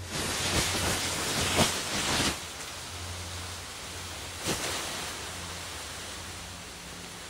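A trail of gunpowder burning with a fizzing hiss that lasts about two seconds, with a few louder spurts, followed by a single sharp pop a couple of seconds later.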